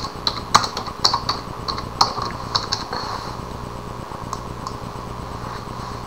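Computer keyboard keys clicking as a password is typed: a quick, irregular run of keystrokes over the first three seconds, then two lone clicks about four and a half seconds in.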